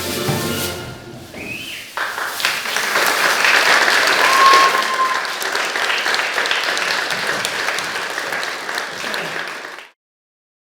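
An audience applauding steadily after music fades out, with a short high tone about four seconds in; the applause cuts off suddenly near the end.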